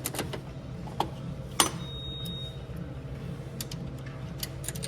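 Scattered sharp clicks and knocks from coins and the mechanism of a quarter ball vending machine being worked, over a steady low machine hum.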